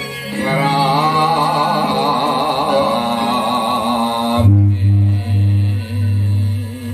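Javanese gamelan dance accompaniment. A wavering vocal line is sung over it for about the first four seconds, then a run of deep low notes sounds in steady strokes.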